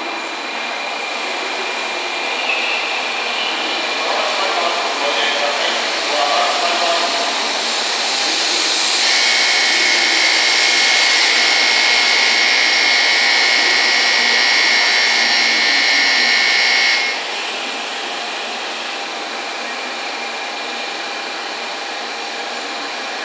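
N700-series Shinkansen running slowly into a station platform, with a crowd chattering. Near the middle, a steady high-pitched tone sounds for about eight seconds and cuts off suddenly.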